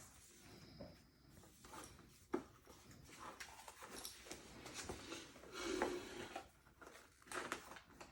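Handling of sneakers and their packaging: intermittent soft rustling with a few light knocks, one sharper knock about two seconds in.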